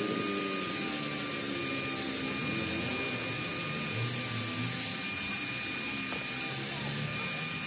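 A rasping crackle as thread seal tape is pulled off its roll and wound tightly around a small threaded brass fitting. A thin steady high tone runs underneath.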